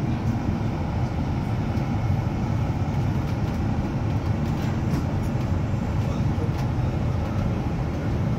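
Steady low rumble of a double-decker bus's engine and running gear, heard inside on the upper deck as the bus moves off from a traffic light, with a few faint light rattles.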